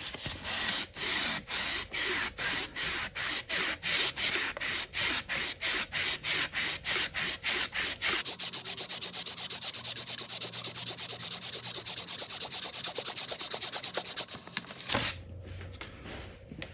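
2000-grit wet-and-dry sandpaper, damp with WD-40, rubbed by hand up and down a chrome motorcycle fork tube to smooth out rust pitting. Even strokes about three a second, then quicker, denser rubbing from about halfway, stopping near the end.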